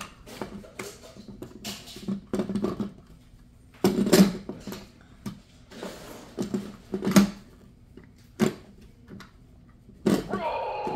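Hard plastic clicks and knocks of a VTech Switch and Go toy being twisted and snapped from gorilla into car form, coming irregularly, the loudest about 4 and 7 seconds in. A pitched, voice-like sound starts near the end.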